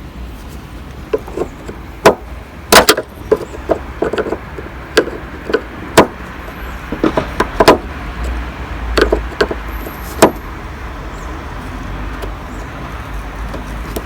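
Screwdriver working the retaining clip off the lower ball-joint end of a car's tailgate gas strut: a run of irregular sharp metal clicks and taps, most of them in the first ten seconds, over a low steady rumble.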